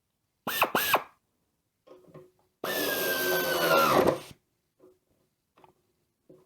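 Pneumatic hand tool's air motor triggered twice briefly, then run free for under two seconds, its whine sagging and spinning down as the trigger is released; a few faint clicks follow.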